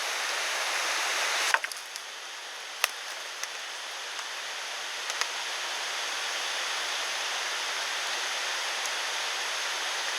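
Steady rush of a clear mountain stream flowing, with a few faint sharp clicks or knocks over it; the rush drops a little in level about a second and a half in.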